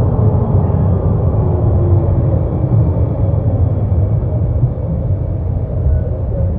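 A steady, loud low rumble, with faint tones above it that slowly fall in pitch.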